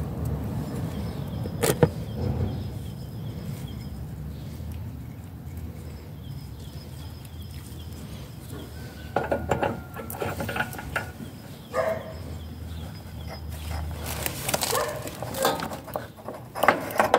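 Scattered clicks, knocks and short metallic clinks from handling the parts of a garden cart's freshly greased axle mount while refitting them. There is one sharp click about two seconds in, and a busier run of clinks from about nine seconds on.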